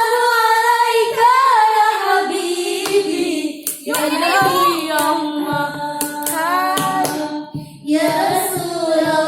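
A woman singing a sholawat, an Islamic devotional song, in long ornamented held notes that waver in pitch, with two short breaks for breath. Sharp hand claps sound irregularly through it.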